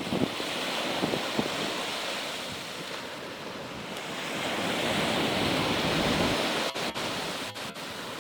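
Sea waves washing in on the beach, an even rushing that swells twice, with wind buffeting the microphone.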